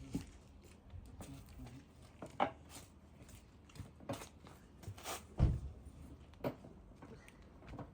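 A handful of separate light clicks and knocks, the loudest a dull thump about five seconds in.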